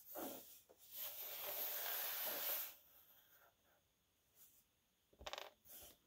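Small metal watch parts, a steel bracelet and spring bar, handled on a hardboard work surface: a rubbing, scraping sound for about a second and a half, then two light metallic rattles near the end.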